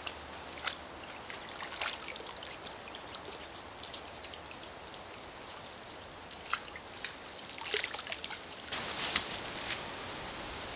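Hands splashing and dripping in shallow stream water: a string of small, sharp splashes and drips over a steady faint hiss, busiest near the end.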